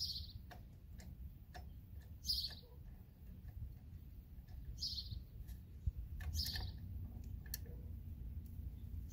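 Birds chirping, a few short high chirps a couple of seconds apart, over faint regular ticking about twice a second.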